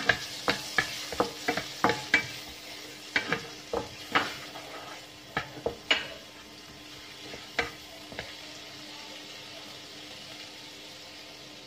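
Chopped onion and garlic sizzling in melted butter in a nonstick pan, stirred with a wooden spatula that knocks against the pan over and over. The knocks stop about eight seconds in, and only the steady sizzle remains.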